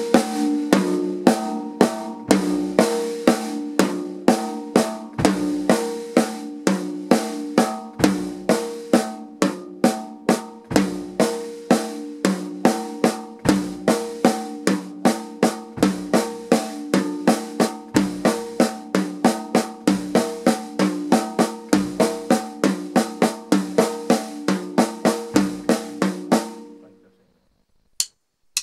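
Acoustic drum kit played with sticks: an even-tempo snare drum exercise at about three strokes a second, with a low bass-drum beat every two to three seconds. The playing stops about 26 seconds in, and a few sharp clicks follow near the end.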